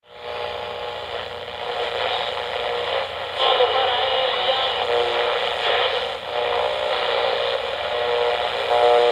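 Tinny, narrow-band station intro sound like an old AM radio: a steady hiss and crackle with shifting tones, growing a little louder about three and a half seconds in.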